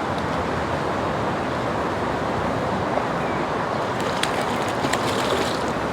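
Fast, shallow stream water rushing over rocks as a steady rushing noise, with a few sharp clicks from about four seconds in.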